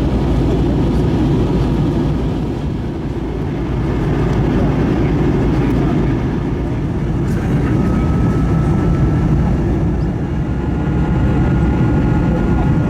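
Steady roar of an Airbus A321 airliner's engines and airflow, heard from inside the cabin, with a faint high whine coming in past the middle.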